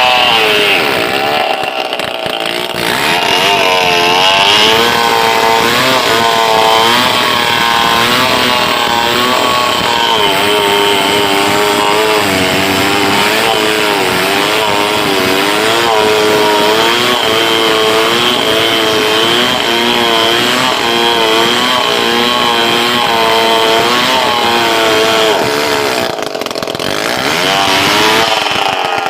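Stihl 070 two-stroke chainsaw running hard under load as it saws through a big log, its pitch wavering up and down. The engine note sags briefly about two seconds in and again near the end.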